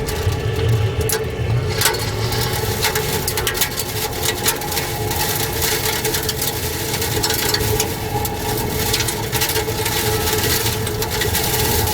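Tornado roaring past at close range: a loud, continuous low rumble of wind with a steady hum in it, and scattered knocks and clicks of debris striking. From about two seconds in a hiss of wind and flying debris builds up over the rumble.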